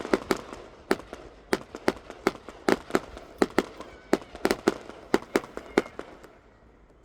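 Fireworks going off: a rapid, irregular string of sharp bangs, about two to three a second, that stops about six seconds in.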